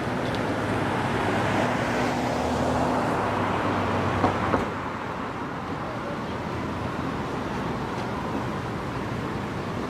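A road vehicle passing on the bridge, its tyre and engine noise swelling and then dropping off just after two sharp knocks about four and a half seconds in, over steady traffic and wind noise.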